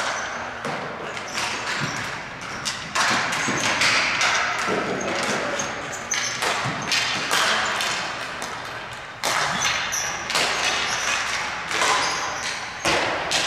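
Ball hockey play: sticks and the plastic ball striking, giving about ten sharp knocks at irregular intervals, each echoing.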